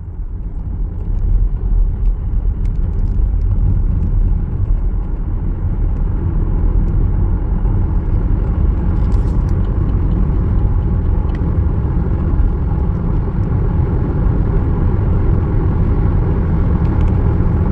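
Loud, steady low rumble that builds up over the first second or two and then holds.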